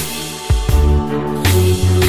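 Music with a deep, heavy bass line and sharp drum hits.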